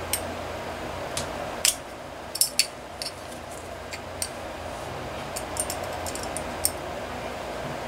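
Light, irregular metallic clicks and taps as an Enya 60X model glow engine and its aluminium muffler are handled and turned over, over a steady low hum.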